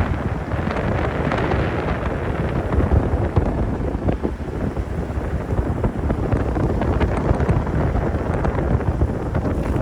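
Wind buffeting the microphone: a loud, gusting, low rumble with no steady tone.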